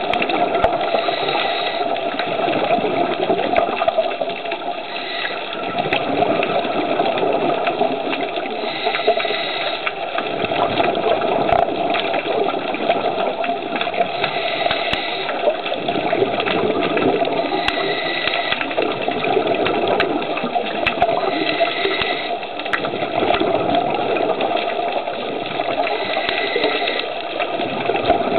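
Muffled underwater noise picked up through a camera housing, with a hissing, bubbling surge about every four seconds, typical of a scuba diver's regulator breathing.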